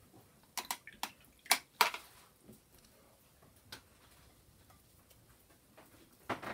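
Light clicks and taps of a paintbrush and painting gear on the desk: several in the first two seconds, one near the middle and a short cluster near the end.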